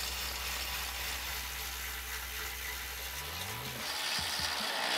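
Cordless electric ratchet with a 15 mm swivel socket and extension, tightening a bumper mounting bolt. Its motor whirs steadily, louder in the last second or so.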